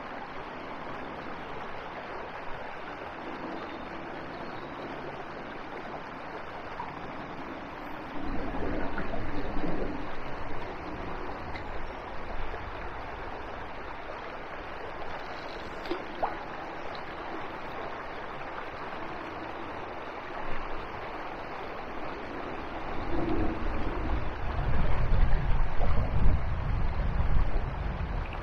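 Steady rush of flowing river water, with gusts of wind rumbling on the microphone about eight seconds in and again, more strongly, over the last few seconds.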